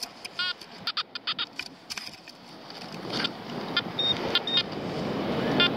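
Short, high electronic beeps and clicks from a metal detector as it sounds off over a target in the sand. From about three seconds in, a rustling of sand being dug grows louder.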